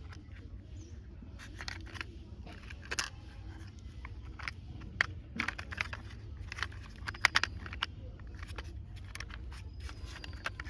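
Plastic toy car body parts being handled and pressed together: irregular light clicks and taps of plastic on plastic, over a steady low hum.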